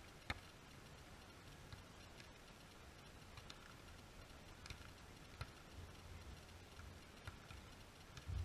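Beach volleyball rally, mostly quiet: a sharp slap of the serve about a third of a second in, the loudest sound, then a handful of fainter slaps of hands and forearms on the ball as it is passed, set and hit across the net. A low rumble comes in near the end.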